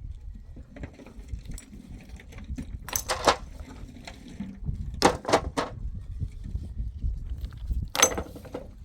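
Sharp clinks and knocks of hard objects, in short clusters about three, five and eight seconds in, over a low rumble.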